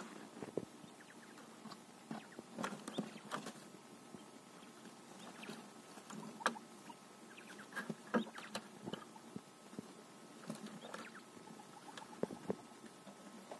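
A quail pecking and scratching in dry hay bedding: irregular short taps and rustles of straw, with small clusters of them.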